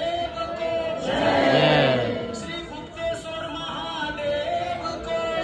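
Group of voices chanting and singing a Hindu aarti hymn in a repeating devotional melody. It swells louder, with many voices together, about a second in.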